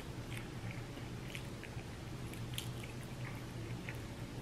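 Faint wet chewing and small mouth clicks of someone eating chicken wings, over a steady low hum.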